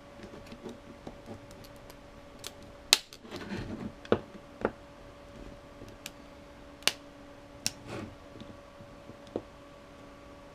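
Plastic laptop battery case being pried open with a flat-blade screwdriver: a series of sharp cracks and clicks as the seams give, with short scraping in between. The loudest crack comes about three seconds in.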